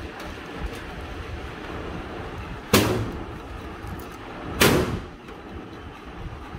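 A metal desktop PC case being handled as it is opened: two short, loud scraping clatters about two seconds apart.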